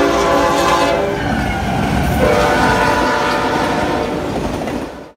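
Union Pacific diesel locomotive's air horn sounding at a grade crossing: one blast ends about a second in, and a second long blast starts about two seconds in, over the rumble of the train's wheels on the rails as the cars pass. The sound cuts off suddenly near the end.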